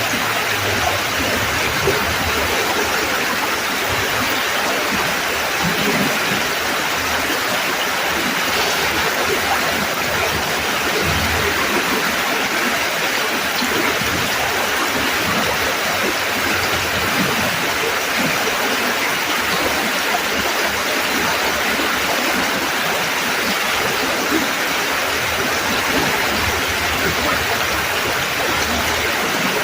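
Creek water rushing steadily under a bridge, a constant full splashing rush with no breaks.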